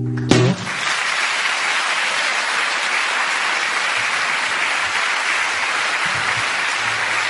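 An acoustic guitar chord rings and stops with a sharp final stroke a moment in, then a theatre audience applauds steadily.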